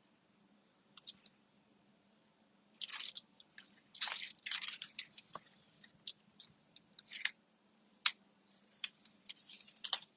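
Paper and card pieces being handled and pressed down close to the microphone: irregular rustling and crinkling with a few sharp clicks.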